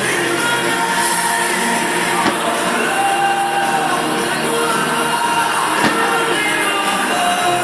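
Rock song with a singing voice, played loudly over a fireworks display. Two sharp bangs, about two seconds in and near six seconds, which are firework bursts.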